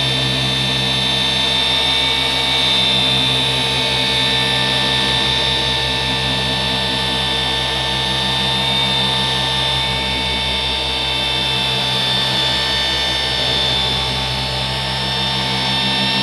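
Cordless Milwaukee dual-action polisher running steadily at high speed, its motor giving a constant high whine as the pad works over a truck's painted hood.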